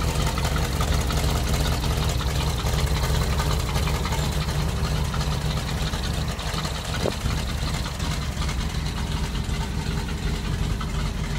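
1976 Chevrolet C65 truck's big-block gasoline V8 (366/427 family) idling steadily.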